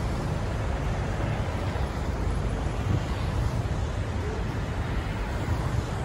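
Steady city road traffic: cars, motorcycles and a truck passing on a wide boulevard, a continuous low rumble of engines and tyres with no single vehicle standing out.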